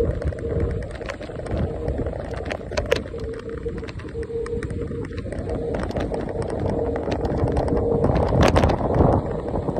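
Electric scooter riding along a street: a steady motor whine that drops out now and then, over low wind buffeting on the microphone and tyre rumble on the road. Scattered sharp clicks and rattles, the loudest about eight and a half seconds in.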